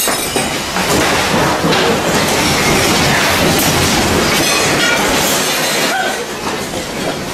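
A house shaking in a major earthquake: a loud, continuous rumble with dense rattling and clattering throughout.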